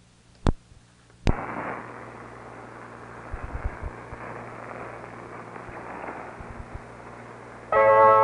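Two sharp clicks, then shortwave receiver static off a 1982 cassette recording: a steady hiss with a low hum and a few crackles. Near the end, music from a shortwave broadcast begins loudly.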